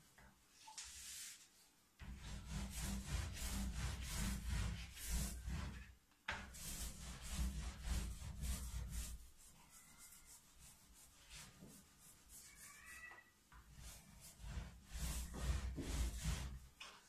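A brush scrubbing back and forth over a gum-oil print on paper in quick repeated strokes, coming in bursts with short pauses, as the excess oil paint is cleaned off the first layer.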